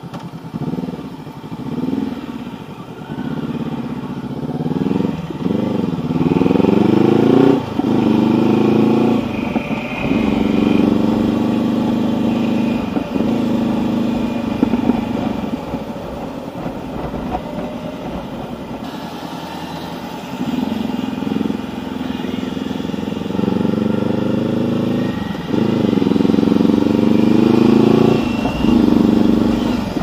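Honda CB500X's parallel-twin engine pulling away and accelerating up through the gears, its pitch rising and dropping back at each shift. It then runs steadily at cruise before accelerating through several more shifts near the end.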